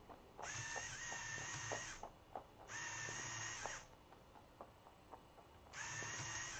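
Lego Mindstorms EV3 motor whirring through the robot arm's gear train in three short runs, the first about a second and a half, the others about a second each. Between the runs, small crunching clicks of a rabbit chewing food pellets.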